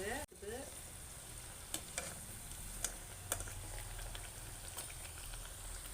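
Ragi (finger millet) vadai deep-frying in hot oil: a steady sizzle broken by a few sharp crackles and pops.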